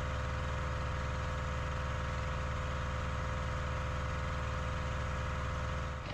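Small diesel generator engine running steadily on corn oil while loaded with a heater, with an even low beat and a constant whine. Near the end the level dips briefly and the sound changes.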